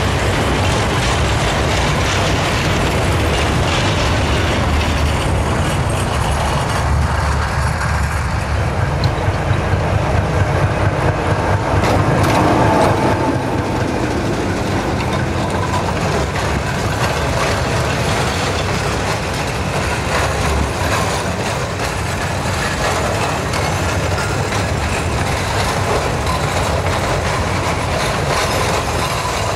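Loaded cement hopper wagons rolling past close by, wheels clacking over the rail joints with a steady rumble. The T458-1509 'hektor' diesel-electric shunting locomotive goes by about ten to thirteen seconds in, where the sound is loudest.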